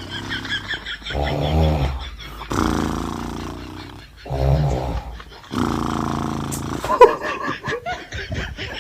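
A man fake-snoring: low rattling snores on each in-breath followed by long out-breaths, repeating about every three seconds, breaking into short choppy sounds near the end.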